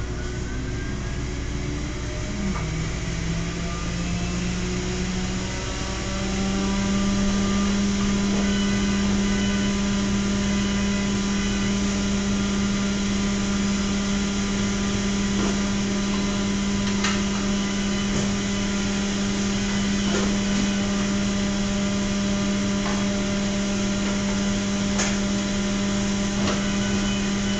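An electric motor running with a loud, steady hum. It steps up in pitch between about three and six seconds in, then holds level, with a few faint clicks over it.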